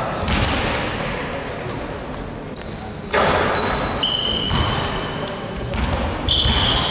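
Basketballs thudding on a hardwood gym floor several times, each hit echoing through the large hall, with short high squeaks in between.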